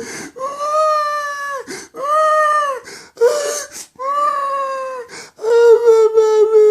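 A grown man crying like a baby, in loud high-pitched wails. There are four drawn-out wails, each broken off by a gasping breath in. The last wail is the longest and wavers as it slowly falls.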